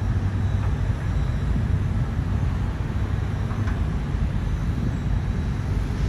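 Diesel engine of a Caterpillar wheeled excavator running, a steady low rumble as the machine works its boom and bucket.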